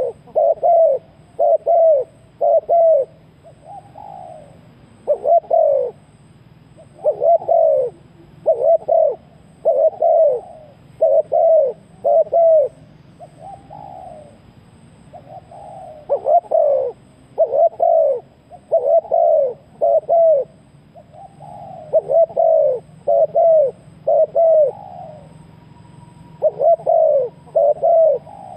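Spotted dove cooing over and over in phrases of two to four low coos, with a pause of a second or two between phrases.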